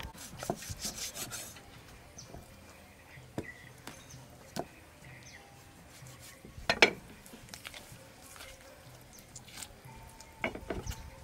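Steel cleaver scraping and tapping on a wooden chopping block while raw chicken legs are trimmed, with a few scraping strokes at the start, scattered light clicks, and one sharper knock about seven seconds in.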